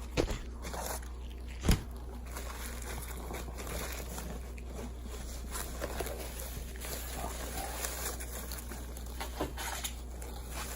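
Bubble wrap and cardboard packaging being handled while a parcel is unwrapped: irregular rustling and crinkling, with one sharp knock just under two seconds in.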